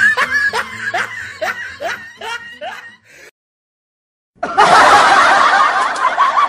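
Laughter in short, repeated, rising bursts, about three a second. It cuts out completely for about a second, then louder, denser laughter comes in.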